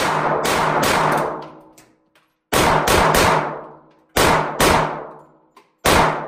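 Glock 43 9mm pistol firing about ten shots in quick strings of two to four, with short pauses between the strings; each shot is a sharp crack with a ringing tail.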